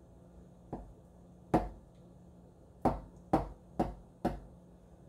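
Kitchen knife jabbed down through a puff pastry pie lid to poke holes in the crust, making six sharp taps at uneven intervals.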